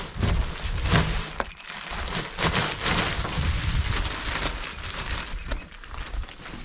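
Bagged topsoil pouring out of a torn plastic bag into a tractor's front-loader bucket, the soil hissing and rustling as it slides out and the plastic bag crinkling.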